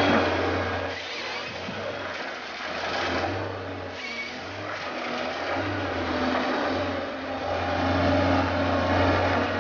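Rottne H20 harvester's 254-hp diesel engine and hydraulics working a log, the engine note swelling and easing several times with the changing load as the harvester head handles the stem and the boom swings it away.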